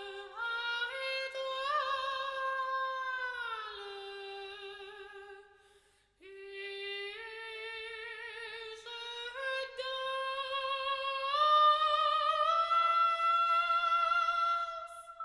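A high solo voice singing long, held notes with vibrato, unaccompanied. It sings two phrases with a short break about six seconds in, and the second phrase climbs slowly in pitch.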